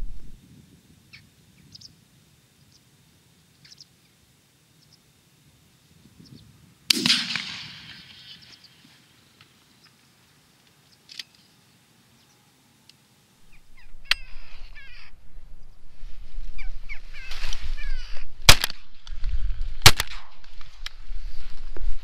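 Three shots from a Browning A5 12-gauge semi-automatic shotgun: one about seven seconds in, heard from farther off with a trailing echo, then two sharp, loud shots about a second and a half apart near the end. Corvids call in the seconds before the last two shots, over a low rumble.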